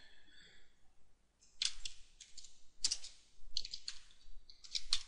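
Computer keyboard being typed: sharp key clicks in short, irregular clusters of a few keystrokes each, starting about one and a half seconds in.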